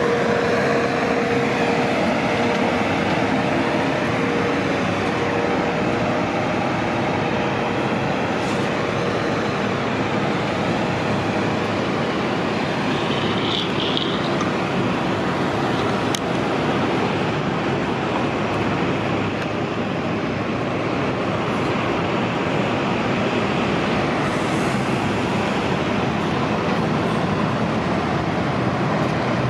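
City transit buses running at a bus terminal: a steady rumble of engines and traffic, with a whine that fades in the first few seconds and a brief high squeak about halfway through.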